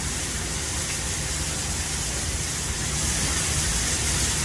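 Steady outdoor hiss, even and unbroken, with a faint low rumble beneath and no distinct events.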